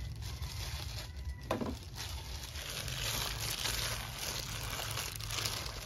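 Marinated minced beef being mixed in a bowl, a continuous rustling, squishing mixing noise that grows louder about halfway through.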